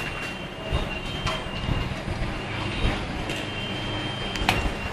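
Factory machinery running with a steady hum and a faint high whine, broken by a few sharp clicks, the loudest near the end.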